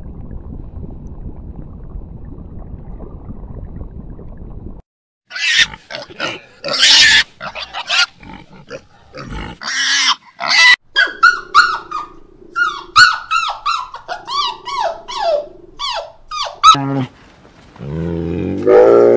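Wild boar piglets squealing and squeaking in many short calls, several falling in pitch, with lower grunts under some of them. Before them there is a low steady underwater rumble. Near the end a deeper, drawn-out call begins.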